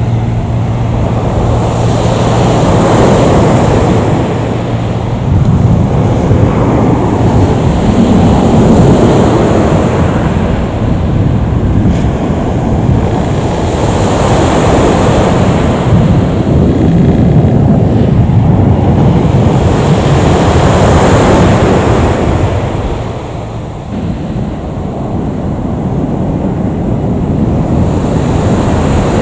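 Wind buffeting the microphone: a loud, steady rushing that swells in gusts every few seconds and dips briefly about three-quarters of the way through.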